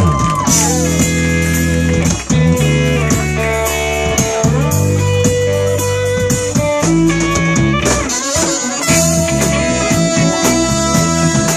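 Live blues-soul band playing an instrumental passage: electric guitar, bass and drum kit with a horn section of trumpets and saxophone.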